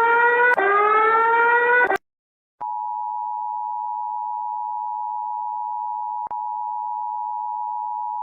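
A chord of electronic tones gliding upward together, cut off after about two seconds; after a short silence, a steady single-pitch Emergency Alert System attention tone sounds without a break except for one brief click about six seconds in.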